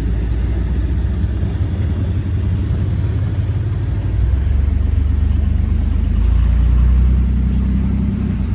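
Steady low rumble of a car driving, the engine and road noise swelling a little about halfway through.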